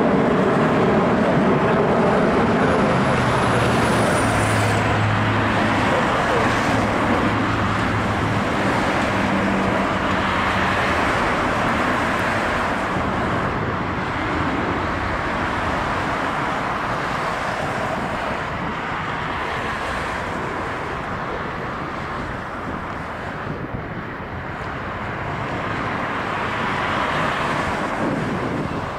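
Boeing C-17 Globemaster III's four Pratt & Whitney F117 turbofans at takeoff power during the takeoff roll, heard from a distance as a steady roar that eases slightly and swells again near the end.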